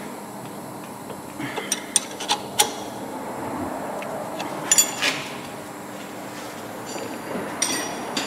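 Metal hand tools clinking during work on a car's rear disc brake caliper: a few separate light clinks with a short ring, the loudest about five seconds in.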